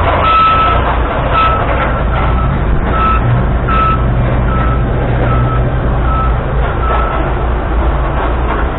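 An airport ground-support vehicle's engine running steadily, its note growing stronger about three seconds in. A reversing alarm beeps about every three-quarters of a second, and the beeps fade out about seven seconds in.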